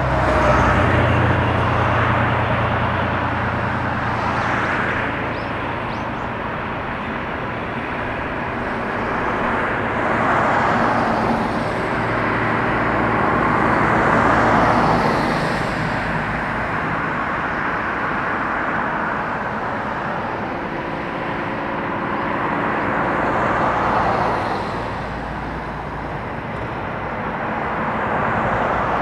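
Road traffic going by: a steady rumble with cars swelling past and fading several times, each pass lasting a few seconds.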